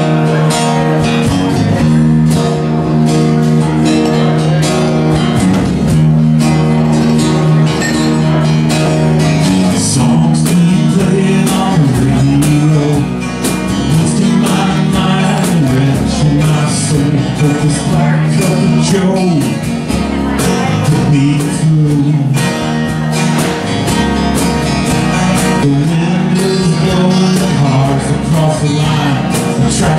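Live acoustic country song: two acoustic guitars strummed and picked, with a man singing over them.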